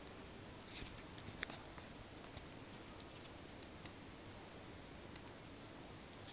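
Faint, scattered clicks and taps of a small clear plastic dog toy being handled and set down on a quilted mat, most of them in the first couple of seconds, then only a few light ticks as a puppy noses at it.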